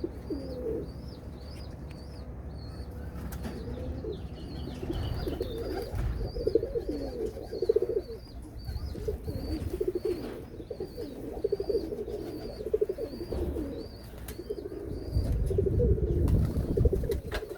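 Domestic pigeons cooing over and over, with a thin, high chirp repeating above the coos.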